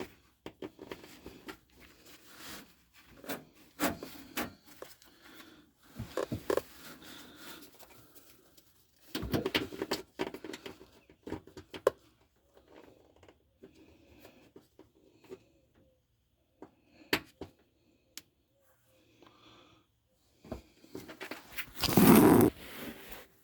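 Scattered clicks, knocks and handling noise, with a louder, brief rush of noise near the end.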